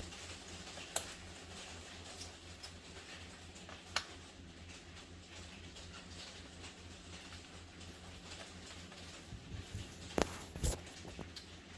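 Small screws being turned out of a laptop's plastic base with a screwdriver: faint scratching and handling, with a few sharp clicks as the tool or screws knock the case, two of them close together near the end.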